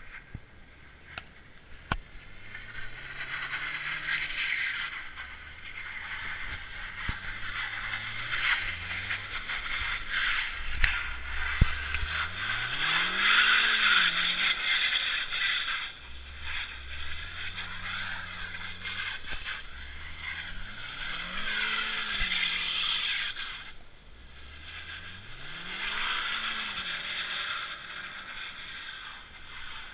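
Hyundai sedan's engine revving up and falling back again and again, over a steady hiss of tyres spinning and sliding on packed snow and ice and throwing up snow.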